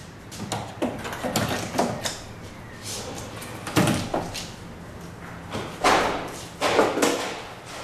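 Irregular knocks and thuds, about eight of them, the loudest around four, six and seven seconds in.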